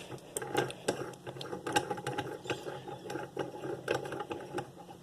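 Master Lock 410 padlock parts being handled during reassembly, with many irregular small mechanical clicks and rattles.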